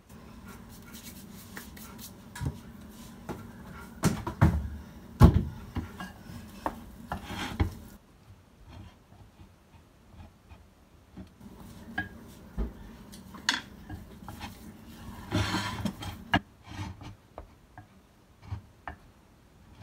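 Wooden spoon stirring and mashing potatoes in a ceramic mixing bowl: irregular scraping with knocks of the spoon against the bowl, the loudest knocks about four to five seconds in.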